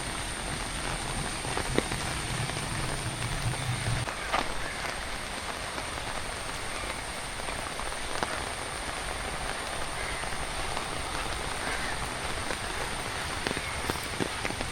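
Steady monsoon rain falling, with scattered drips and patters. A low rumble underneath cuts off suddenly about four seconds in, and a thin, steady high whine runs under the rain.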